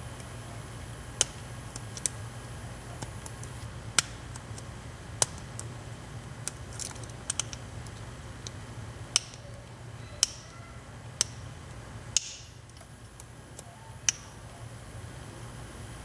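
Sharp, irregular metallic clicks from a lock pick and tension wrench working the pins of a Pacific Lock 100A five-pin padlock, about a dozen clicks spaced a second or so apart. The uploader says this lock has a couple of collapsed pin springs that make it hard to pick.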